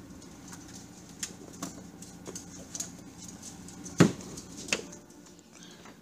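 A skunk scrambling on the plastic shelves and drawers of an open refrigerator: scattered light taps and clicks, with a loud knock about four seconds in and a smaller one shortly after, over a low steady hum that fades near the end.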